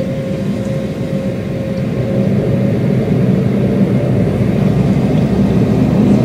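Steady engine and rolling noise of an Embraer E-190 jetliner, heard from inside the passenger cabin, with a low rumbling drone that grows louder about two seconds in as the engines pick up.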